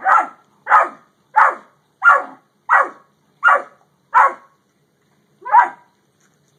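A dog barking eight times in a steady rhythm, about three barks every two seconds, with a longer pause before the last bark.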